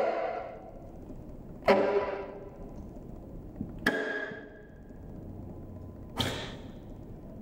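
Sharp single strikes on a drum kit, three of them about two seconds apart, each ringing out for under a second.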